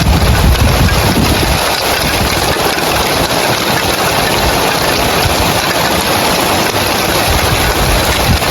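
Heavy rain falling on roof tiles: a dense, steady hiss, with a low rumble underneath that fades out about a second and a half in.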